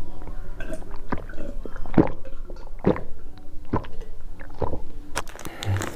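Close-miked gulping of a drink from a steel tumbler: a swallow about once a second, five or six in all.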